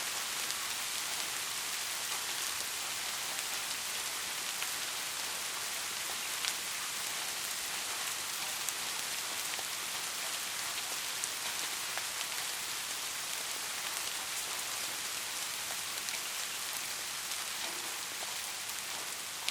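Soft, steady rain falling on a surface: an even hiss with faint scattered drop ticks.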